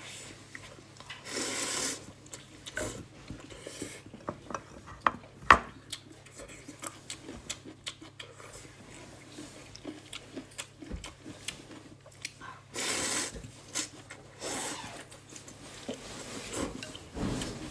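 Eating a bowl of instant noodles: utensils clicking and scraping against the bowl, with a few short noisy bursts of slurping about a second in, twice around the 13-second mark, and near the end. The sharpest click comes about five and a half seconds in.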